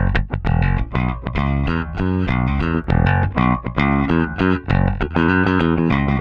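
Electric bass guitar played through an Empress Bass Compressor pedal: a busy line of plucked notes following one another several times a second, held even in level by the engaged compressor.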